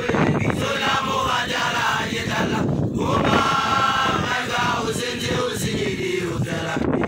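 A young male Basotho initiate chanting loudly in held, pitched phrases, with other initiates' voices joining in.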